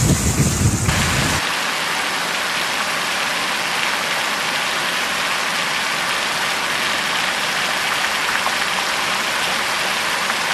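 Heavy rain falling as a steady even hiss. It takes over abruptly about a second and a half in from a low rumble of wind buffeting the microphone.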